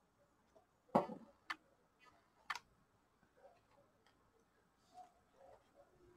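Scissors snipping EVA foam: a few sharp clicks, the strongest about a second in and two more within the next second and a half, followed by faint handling sounds.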